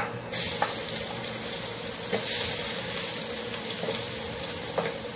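Chopped garlic hitting hot cooking oil in a stainless steel pot and sizzling, starting just after a click as it goes in and then frying with a steady hiss. A wooden spatula stirs it, with a few light taps against the pot.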